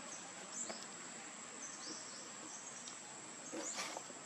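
Steady high-pitched insect drone, with a few faint short chirps, and a brief shrill sound near the end.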